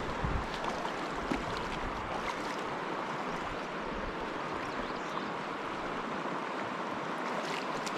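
Fast stream water rushing steadily, a creek running high with spring runoff. A couple of low thumps come in the first half second.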